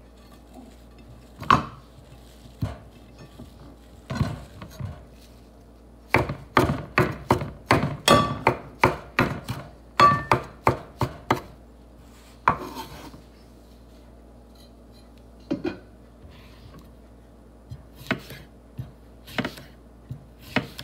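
Kitchen knife chopping fresh parsley on a wooden cutting board: a few scattered knocks, then a fast run of about a dozen strokes in the middle. Near the end come single slow cuts as a cucumber is sliced into rounds.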